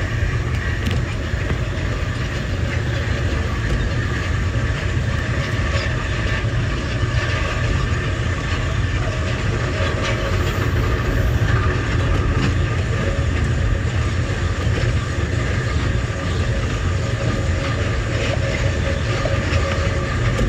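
Amtrak Southwest Chief passenger train running at speed, heard from aboard: a steady low rumble of wheels on the rails with no breaks or changes.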